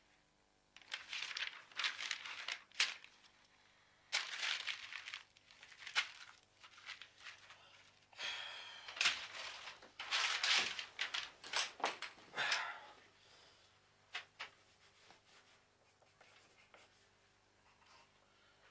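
Sheet of paper being crumpled and torn by hand, in a series of rustling bursts that stop about thirteen seconds in.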